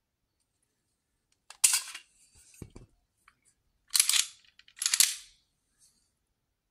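Metallic clacks of a Beretta PX4 Compact pistol's slide and action being worked by hand: a sharp clack about a second and a half in, a duller knock, then two more sharp clacks about a second apart.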